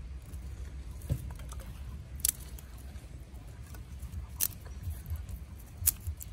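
Dry twigs crackling and snapping as a small kindling fire catches in a clay stove: a few sharp snaps spaced well apart over a low steady rumble.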